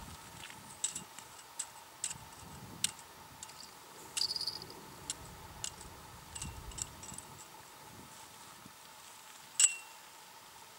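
Irregular sharp clicks and ticks, roughly one or two a second, with a short buzzy burst about four seconds in and one louder click near the end that rings briefly; a faint steady hum underneath.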